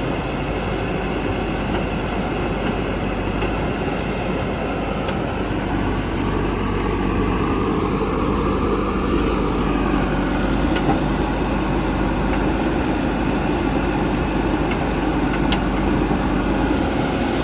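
Heavy diesel engine of earth-moving machinery running steadily. It revs up and settles back about halfway through, as under working load.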